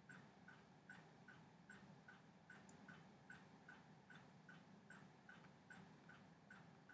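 Near silence: faint room tone with a soft, even ticking, a few ticks a second.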